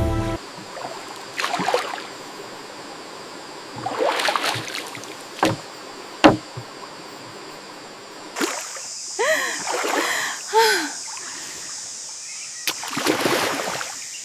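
Paddles dipping and splashing in river water, a stroke every couple of seconds, with one sharp knock, likely a paddle against the boat, about six seconds in.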